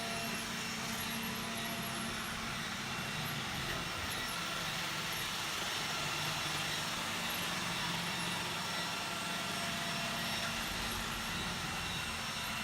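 iRobot Roomba 980 robot vacuum running, a steady whir of its suction motor and brushes.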